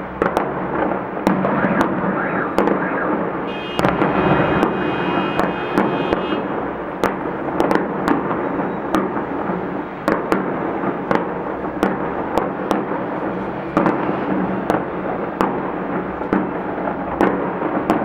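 Fireworks salute going off: a dense run of sharp bangs, several a second, over a continuous rumble of bursts and their echoes. A high, buzzing tone of several stacked pitches joins in from about four to six and a half seconds in.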